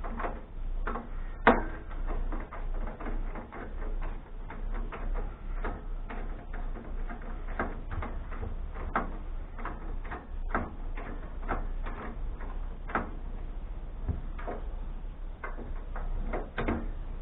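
Irregular clicks and light knocks from hand work on a desktop computer case as its screws are taken out, with one sharper knock about a second and a half in.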